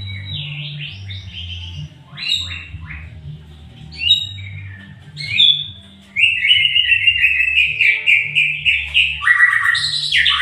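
White-rumped shama (Sumatran murai batu) singing: varied whistled phrases with sliding notes, then from about six seconds a long, fast, louder run of notes.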